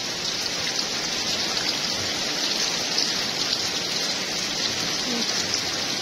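Steady rain falling, an even hiss with fine spatter throughout.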